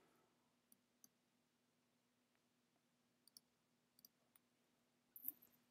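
Near silence with a faint low hum, broken by about six faint, short computer mouse clicks: one about a second in, a close pair past three seconds, and two more around four seconds.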